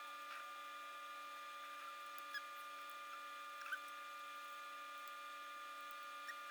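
A few faint, scattered clicks of fan cable connectors being handled and plugged into a fan controller, over a steady electrical whine.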